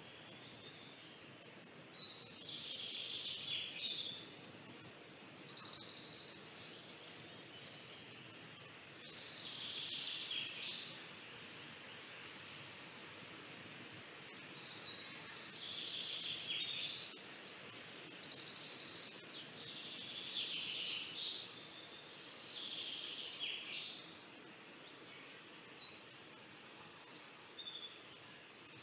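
Pencil scratching on paper in repeated bursts of shading strokes, each burst lasting one to three seconds with quieter pauses between.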